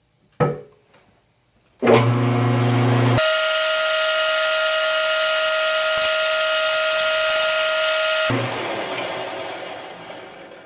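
An engine lathe switched on with a click, its motor starting with a low hum; then a loud, steady high-pitched ring over a hiss as the cutting tool touches the inside of the rusty cast-iron brake drum spinning at slow speed. The ring stops abruptly about eight seconds in and the lathe winds down.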